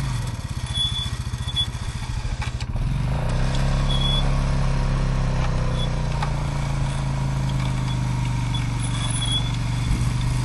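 ATV engine running near idle. Its note sags into a slower, uneven beat for the first couple of seconds, then settles back to a steady idle.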